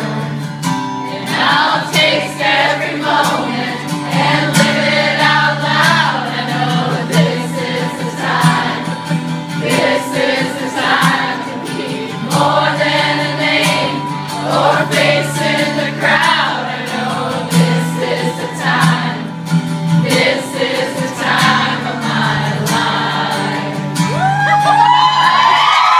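Live strummed acoustic guitar under many voices singing together, like a crowd singing along. Near the end, cheers and high screams rise over the music.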